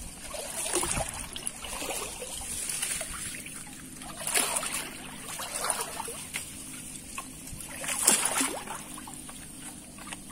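Shallow river water sloshing and trickling as a hand scoop net is pushed and worked through the water under bank grass, with splashes from the hands and net. The two loudest come about four and eight seconds in.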